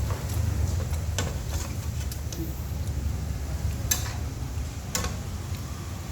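Yellow noodles being stir-fried in a wok: a spatula stirs and knocks against the pan with a few sharp clicks, over a steady low rumble.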